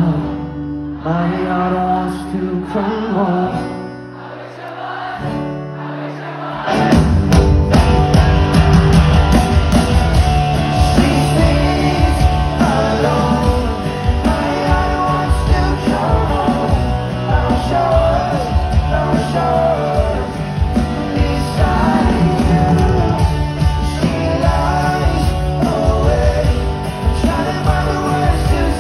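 Live pop-rock band playing with singing. It starts as a sparse, quieter passage, and about six seconds in the full band with drums and guitars comes in loud.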